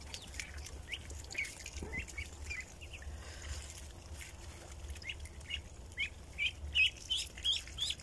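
A flock of ducklings and chicks peeping: many short, high chirps, coming thicker and louder over the last couple of seconds.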